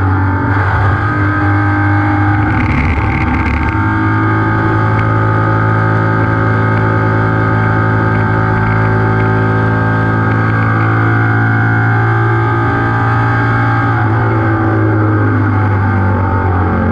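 In-car sound of a BMW 700 racer's air-cooled flat-twin engine running at speed, its pitch holding steady, with a brief extra noise about three seconds in.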